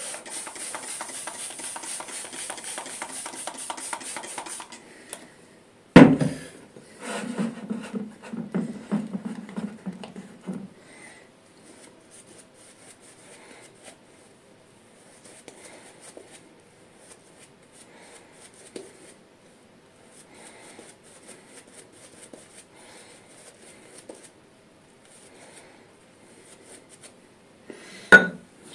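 Synthetic shaving brush working soap lather, a fast rhythmic swishing for the first few seconds, then quieter brushing of lather on the skin. A single sharp knock comes about six seconds in.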